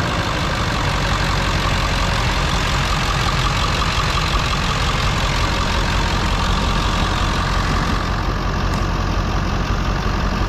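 1999 Ford F250 Super Duty's 7.3-litre Power Stroke turbo-diesel V8 idling steadily.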